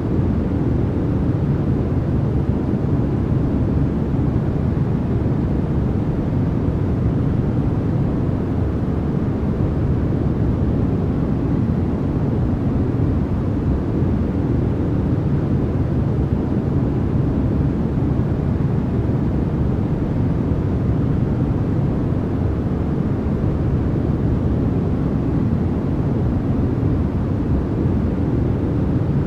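Continuous white-noise track: an even, unchanging rush with most of its energy in the low range, more of a deep rumble than a bright hiss.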